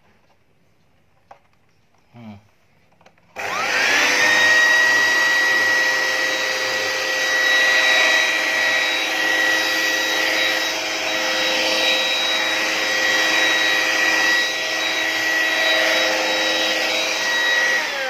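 Corded mains-powered hand vacuum cleaner switched on a few seconds in, its motor spinning up quickly to a steady high whine over rushing air. Right at the end it is switched off and the whine starts to fall.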